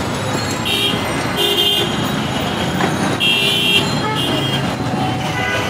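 Street traffic with vehicle horns tooting in short, flat-pitched blasts, four times, over a steady traffic din.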